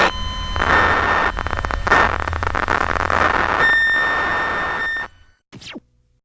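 Harsh electronic static-like noise with a few steady high tones through it, flickering and crackling. It cuts off suddenly about five seconds in, followed by a brief falling sweep and then silence.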